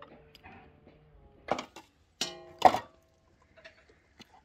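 A few sharp knocks and clanks of metal cookware, one ringing briefly, the loudest about two and a half seconds in.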